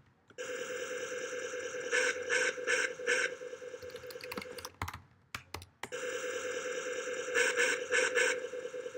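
Apple II 5.25-inch floppy disk drive running twice, each run a steady whir of about four seconds with a few quick pulses in the middle, as DELETE commands go to the disk. Keyboard keys click briefly in the gap between the two runs.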